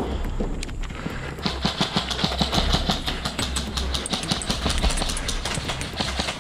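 Footsteps and kit rattling as a player advances, with irregular clicks and knocks over a steady low wind rumble on the microphone.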